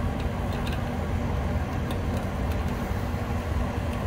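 Steady low mechanical rumble in the background, with a few faint light clicks as a Schrader valve core remover works in the brass service valve ports of an air-conditioning condenser.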